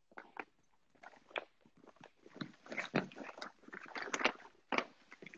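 Irregular rustling, clicks and knocks of someone handling things close to the phone, searching for a phone charger; the handling gets busier after about two seconds.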